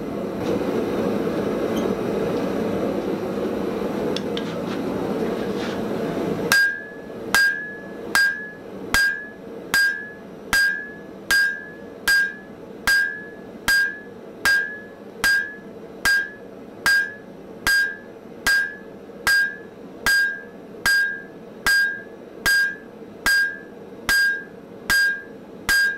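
A steady rushing noise for about six and a half seconds stops suddenly. Then a hand hammer strikes red-hot Damascus steel on an anvil at an even pace of a bit more than one blow a second, about two dozen blows, each leaving a short high ring: the sword blade being drawn out.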